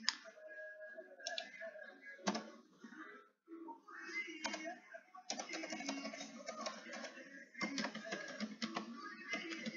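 Computer keyboard keys clicking as a word is typed, in a dense run from about five seconds in, over faint background music.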